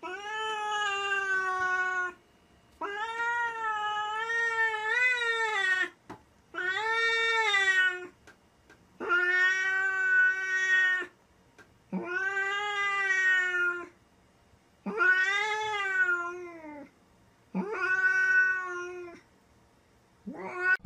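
Domestic tabby cat yowling a territorial threat at another cat outside the window: seven long, wavering yowls with short pauses between.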